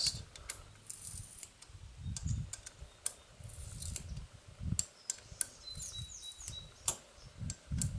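Scattered light metallic clicks of a 9/16 box-end wrench working the nut of a half-inch Power Bolt (Rawl 5-piece) anchor set in concrete. The bolt spins in the hole instead of tightening: its nose cone has not seated, for a reason the installer cannot pin down.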